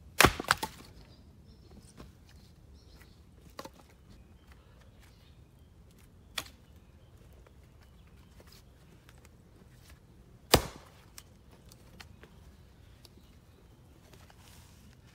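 Splitting axe chopping into black locust firewood on a chopping block: a sharp chop about a quarter second in with a second crack right after it, a few light knocks of wood in between, and another sharp chop about ten and a half seconds in.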